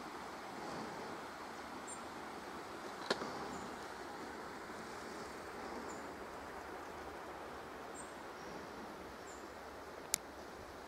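Forest ambience: a steady soft rush with faint, short, high bird chirps scattered through it every second or two. Two sharp clicks stand out, one about three seconds in and one near the end.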